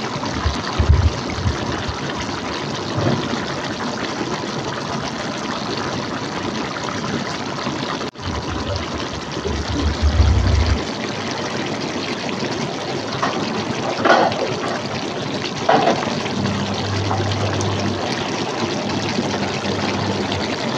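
Duck braising in soy sauce bubbling at a steady boil in an open pot, a continuous bubbling hiss. It cuts out briefly about eight seconds in, with a few low thumps and short louder spurts of bubbling.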